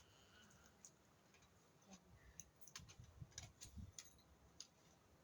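Near silence, with a few faint scattered clicks and soft low thumps.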